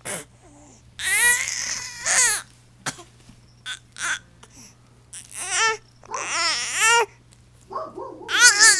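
Baby whining and crying, about five separate cries with a wavering pitch and short quiet gaps between. This is the cranky fussing of an infant stuck on her tummy with one arm pinned under her after rolling over.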